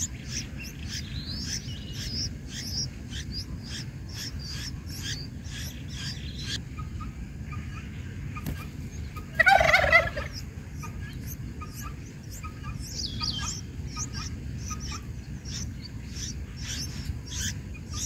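Nestlings' short, high begging chirps repeat throughout over a steady low rumble. About nine seconds in comes one loud, rapid warbling call lasting just under a second.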